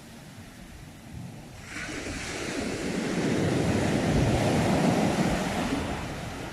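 Sea wave breaking and washing in: a rush of surf that swells about two seconds in, peaks, and fades near the end.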